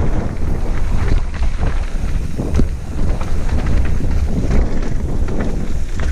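Wind buffeting a helmet-mounted camera's microphone during a fast mountain bike descent on a dirt trail, a steady low rumble, with frequent clicks and knocks from the bike rattling over the rough ground.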